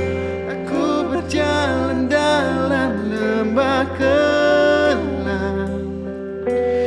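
Slow worship song: a voice sings long, gliding notes over steady held instrumental chords.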